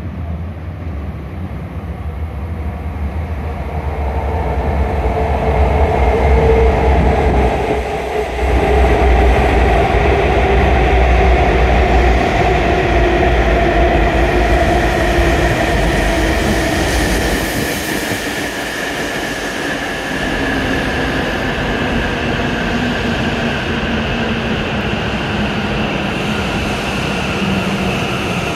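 E7 series Shinkansen train pulling into the platform and braking to a crawl. Its electric whine sits in several tones that glide steadily down in pitch as it slows. The train's rush and low rumble get louder as it draws level, and the rumble fades away about two-thirds of the way through.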